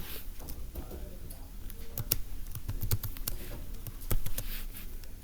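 Computer keyboard typing: irregular, quick key clicks.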